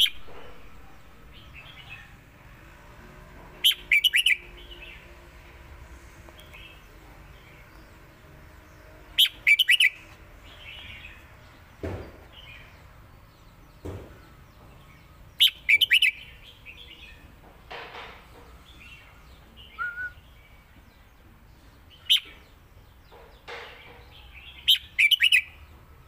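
Red-whiskered bulbul singing: five short, loud phrases of quick whistled notes a few seconds apart, with softer chirps in between.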